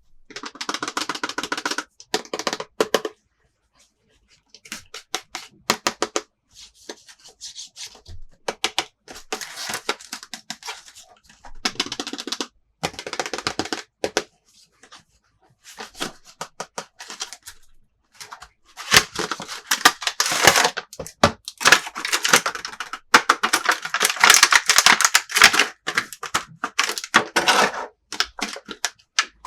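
Plastic toy pieces and packaging handled close to the microphone: bursts of rapid clicking and crackling, a second or two at a time with short pauses, busiest in the last third.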